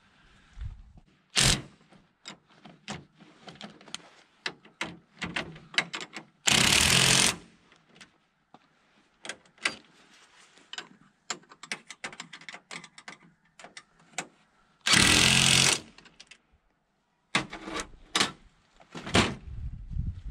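Cordless impact tool hammering on the bolts of a new flange bearing on the conveyor shaft: two bursts of about a second each, and shorter bursts near the end. In between come scattered clinks and knocks of metal tools and parts being handled.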